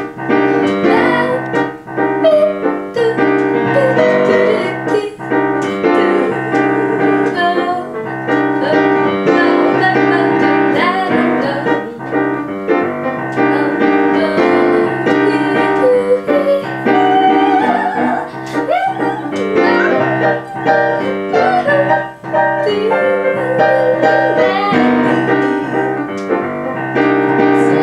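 Upright piano playing a jazz chord progression while a young woman improvises a wordless vocal line over it on varied syllables and registers, as a vocal warm-up.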